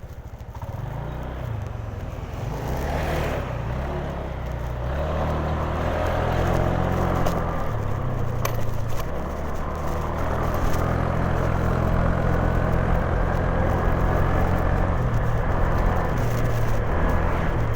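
Honda Genio scooter's small single-cylinder engine running on the move, with steady road rumble; it grows louder over the first six seconds and then holds steady.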